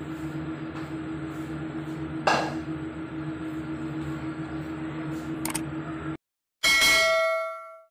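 A steady hum, with a short sharp swish about two seconds in and a click a little past five seconds. After a brief gap, a bright chime rings out and fades away: the mouse-click and bell sound effects of a subscribe-button animation.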